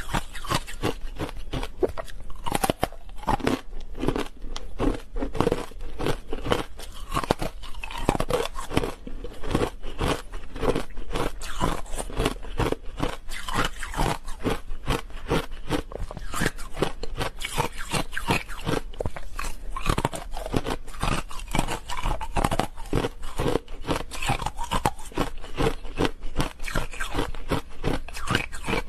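Ice bars coated in matcha powder being bitten and chewed, a continuous run of crisp crunches several a second.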